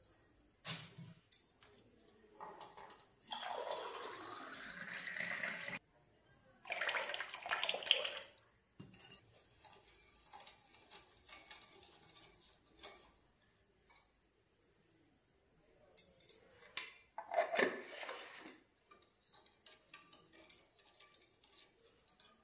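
A spoon clinking against a drinking glass and steel containers. About three seconds in, water pours into the glass, its pitch rising as the glass fills, followed by another splashy burst. Later a spoon stirs in the glass to dissolve sugar into lemon water.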